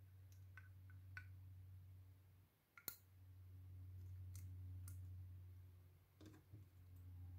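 A handful of faint metallic clicks and taps from steel tweezers working against a brass lock cylinder as its pins and springs are picked out, the sharpest about three seconds in, over a low steady hum.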